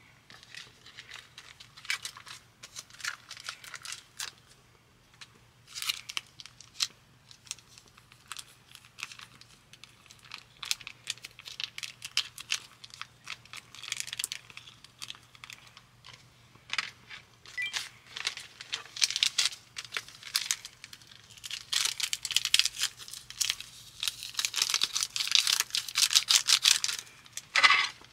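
Plastic food sachets crinkling and being torn open and squeezed, in irregular rustling bursts that grow busier and louder in the last third.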